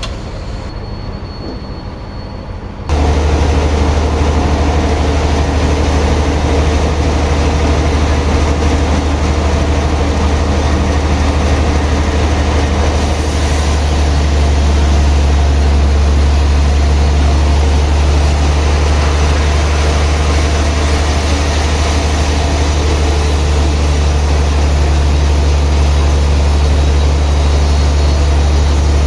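Heavy sawmill machinery running with a loud, steady low drone that starts suddenly about three seconds in. A high hiss joins about ten seconds later.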